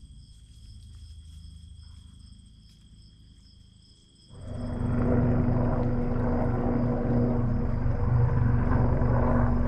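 Helicopter flying nearby: a faint low drone that suddenly grows loud about four seconds in and then holds as a steady engine-and-rotor drone.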